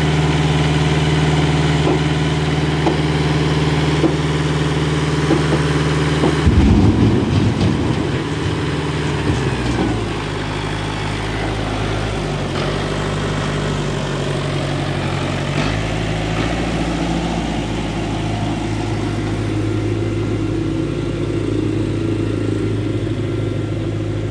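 Farm tractor's diesel engine running at a steady note, then surging roughly about six seconds in and settling to a lower, shifting note as it pulls a trailer loaded with oil palm fruit bunches away.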